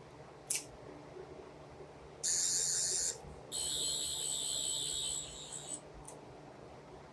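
Toy 12th Doctor sonic screwdriver playing its electronic sound effect: a high, warbling whir in two bursts, the first about a second long and the second about two seconds, after a single click near the start.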